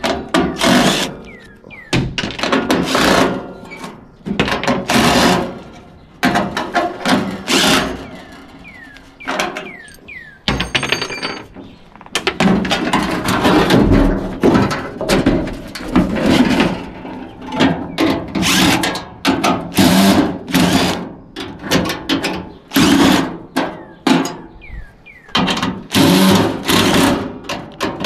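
Cordless drill/driver running in many short bursts as it backs screws out of the aluminum sheet-metal housing of a walk-in cooler evaporator, with thunks from the metal.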